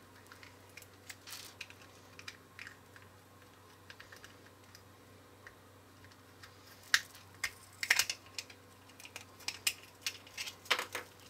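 Small plastic clicks and scrapes as the hollow plastic shell pieces of a toy ball are pressed and twisted together by hand. The clicks are scattered at first, then come quicker and louder from about seven seconds in.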